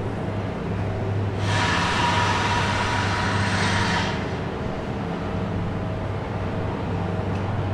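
Steady low engine drone of heavy demolition machinery running. A rushing noise swells in about a second and a half in and fades about four seconds in.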